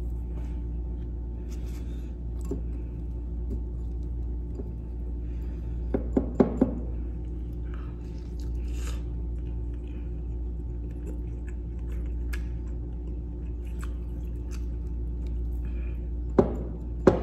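Close-up chewing and biting sounds of a man eating slices of fried luncheon meat, over a steady low hum. A few short, louder knocks come about six seconds in, and one more near the end.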